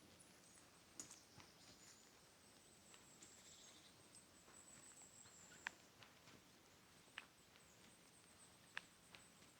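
Faint footsteps on a woodland path, with four sharp clicks spread through, the loudest near the middle, over a faint steady high-pitched tone.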